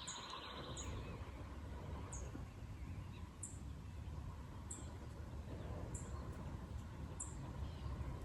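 Quiet rural ambience: a steady low rumble with a small bird's faint, high chirps repeating about once a second.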